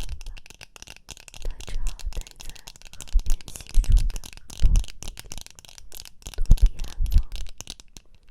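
Close-miked ASMR tactile sounds: irregular soft taps, rustles and clicks of objects handled at the microphone, with a handful of soft low thumps.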